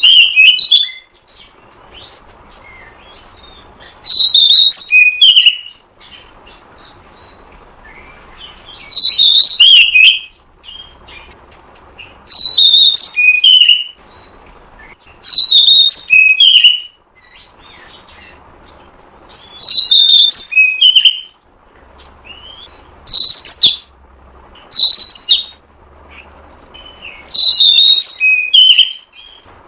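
Oriental magpie-robin (kacer) singing loud, short phrases of whistled notes, each about a second and a half long, repeated every three to four seconds, with a faint hiss between them.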